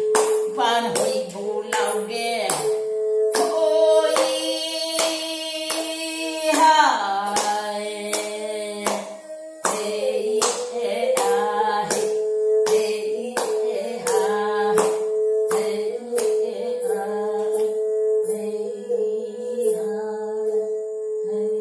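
An elderly woman singing a folk song while clapping a steady beat, a little under two claps a second, over a bowed fiddle holding a sustained tone. Her voice is strongest from about 4 to 7 seconds in.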